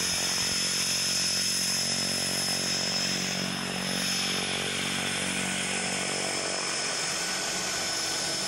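Cessna Caravan jump plane's turboprop engine running steadily on the ground: an even hum with a steady high turbine whine over it.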